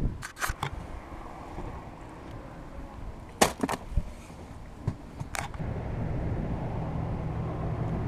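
A few sharp knocks and clicks from gear being handled in a small fishing boat, in small clusters about a second in, about three and a half seconds in and near five and a half seconds. From about two thirds of the way through, a steady low rumble sets in.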